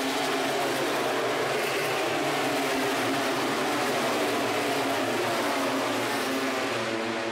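MotoGP racing motorcycles running flat out along the straight, several high-revving engine notes overlapping, their pitch rising and falling as the bikes pass.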